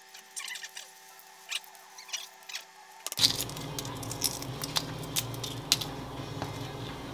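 Boiled eggshell crackling and snapping in short, irregular clicks as fingers peel hard-boiled eggs.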